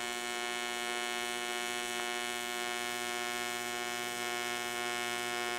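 AC TIG welding arc on aluminum buzzing steadily at just over 100 amps while a bead joins a thick aluminum piece to a thin one.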